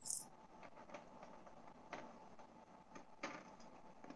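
Near silence: room tone with four or five faint, short taps spread across it.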